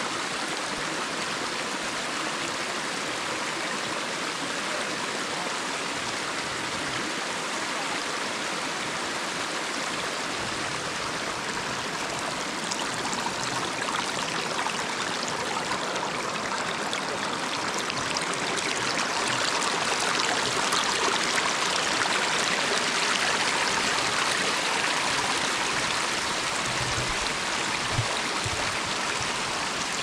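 Small, shallow mountain stream running and splashing over stones: a steady rush of water that swells a little past the middle. A single brief low knock comes near the end.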